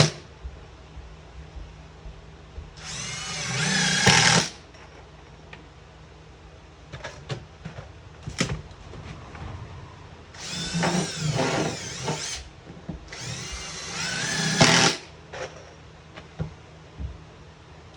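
Power drill driving GRK wood screws through sheathing into the shower base framing, three runs of about two seconds each with the motor's whine rising as each screw goes in. A few light knocks fall between the second and third screws.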